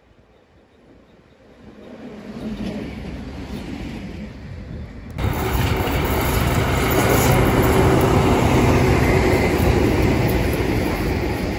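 Electric freight locomotive approaching, its rumble swelling over the first few seconds. About five seconds in the sound jumps abruptly to a loud, steady rumble as a diesel locomotive hauls a train of hopper wagons past close by, with engine noise and rolling wheels.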